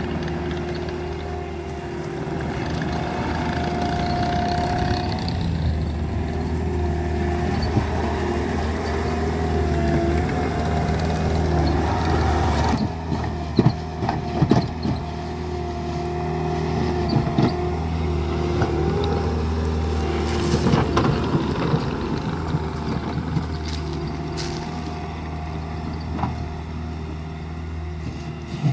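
Bobcat compact track loader's diesel engine running steadily under work, with a high whine that wavers in pitch. From about halfway through come scattered clanks and knocks as the bucket and tracks work the gravel.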